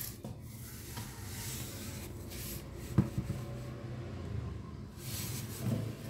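Hands handling and turning a cardboard mailing tube wrapped in packing tape: rubbing and rustling against the cardboard and tape, with a single sharp knock about three seconds in.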